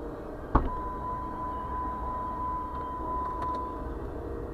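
Norfolk Southern intermodal freight train rolling past with a steady low rumble. A sharp click about half a second in is followed by one steady high-pitched tone that holds for about three seconds and stops.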